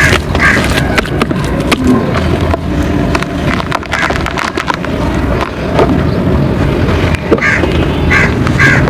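Red dirt and mud being crumbled and mixed with water into a paste: continuous gritty crunching and squishing, with many small crackling clicks.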